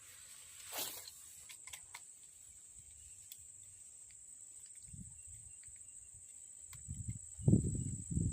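A steady high-pitched insect drone from crickets or cicadas. A brief whoosh comes about a second in. Low rumbling thumps and rustles come in the last few seconds, the loudest near the end.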